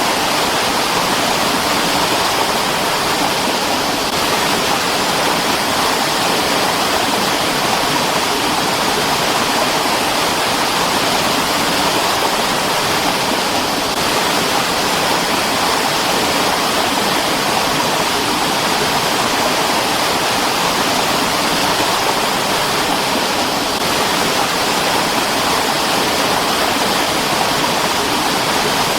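Mountain stream rushing and splashing over rocks, a steady, even wash of water noise.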